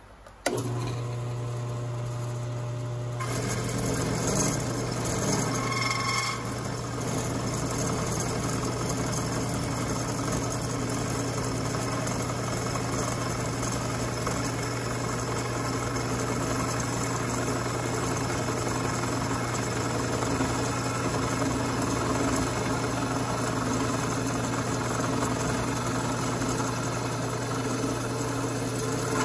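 A drill press motor switches on with a steady hum. From about three seconds in, the end mill in its chuck cuts a slot while the cross slide feeds the work, adding a continuous grinding cutting noise to the motor's hum.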